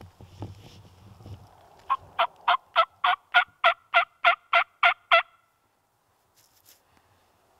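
A hunter's mouth-blown turkey call giving a run of about a dozen even yelps, about three and a half a second, that stop abruptly, a hen-turkey series meant to make a gobbler answer.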